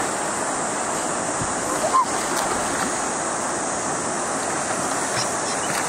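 River water flowing and lapping right at the microphone, a steady rushing wash from a gentle but fairly strong current.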